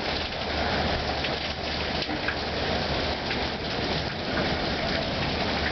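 Heavy storm rain falling in a steady hiss, with a few sharper taps scattered through it.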